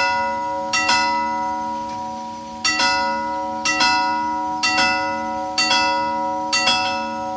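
Railway level-crossing warning bell striking at a slow tempo, about once a second, most strikes a quick double hit over a sustained ringing tone. The strikes stop near the end and the ring fades away.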